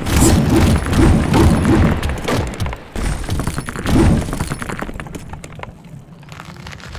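A run of heavy thuds and crashes with shattering, about six in the first two seconds and another about four seconds in, then a fading patter of small clicks like falling debris.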